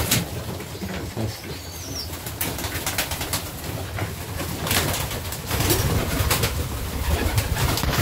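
Pigeons cooing, with scattered short flaps and scuffs.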